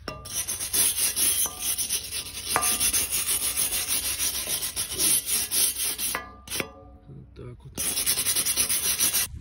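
A hand brush scrubbing rust and flaking paint off a rusty metal fence rail in quick back-and-forth strokes, with a short break about two-thirds of the way through. The rail is being stripped back before painting.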